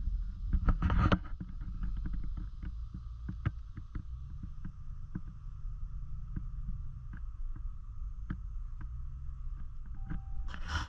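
Low rumble of a Ram pickup truck and its tyres rolling slowly over a wet, debris-covered road, heard inside the cab. Frequent irregular clicks and cracks of debris under the tyres run through it, with a louder crunch about a second in and another near the end.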